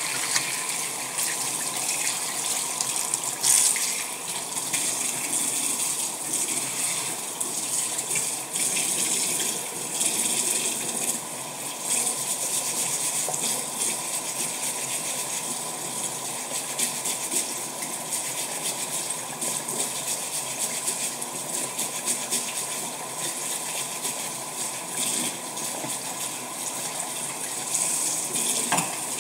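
Tap water running steadily into a stainless steel kitchen sink, rinsing it down around the drain strainer.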